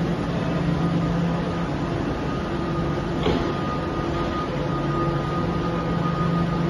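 London Overground electric train humming steadily at the platform, its onboard equipment giving a mechanical drone with a few held tones. A brief higher sound cuts in about three seconds in.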